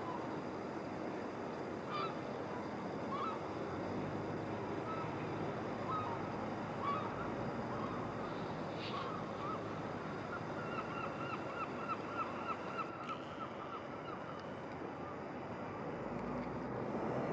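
Birds calling over a steady background hum: scattered single short calls, then a quick run of about a dozen calls around two-thirds of the way through.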